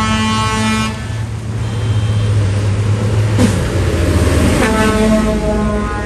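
Vehicle horns sounding over running tractor engines: one held horn note stops about a second in, and another starts just after the middle and holds to the end.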